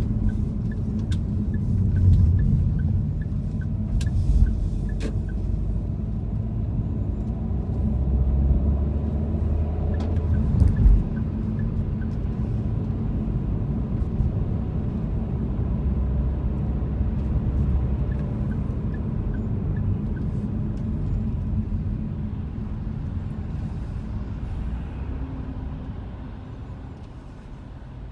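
Low, steady rumble of a car's road and engine noise heard from inside the cabin while driving, easing off over the last few seconds as the car slows. A light, regular ticking runs through the first few seconds.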